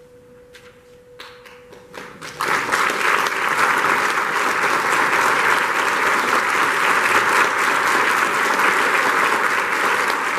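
A few scattered claps, then about two and a half seconds in an audience breaks into steady, sustained applause.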